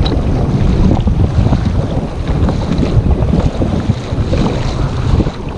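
Wind buffeting the microphone in a loud, fluttering low rumble, with sea water washing around a kayak on choppy water.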